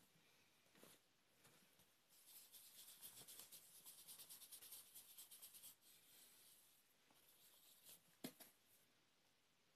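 Faint, fast scratching or rubbing for about three and a half seconds, then a light sharp click near the end.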